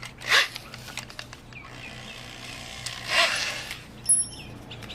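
Cordless drill boring a hole in a plastic bumper, run in two short bursts: one just after the start, one about three seconds in.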